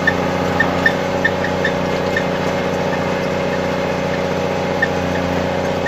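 Snowcat grooming machine's diesel engine running steadily, heard from inside the cab, with a few light ticks and rattles scattered over it.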